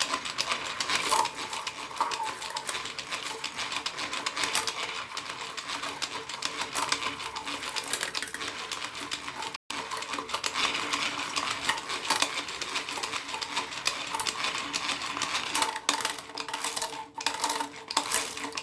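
A hand beater whipping instant coffee, sugar and water for dalgona coffee, with fast, continuous clicking and scraping against the container. There is a momentary break about halfway through.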